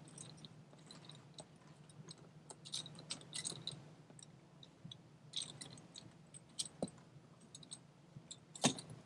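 Small plastic clicks and scrapes of a screw-in valve fitting on an inflatable kayak being threaded by hand, with a sharper click near the end.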